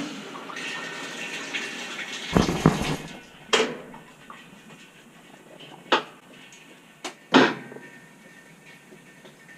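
Washing machine water rushing for about three seconds, swelling into a deep gush before it stops, followed by four sharp knocks.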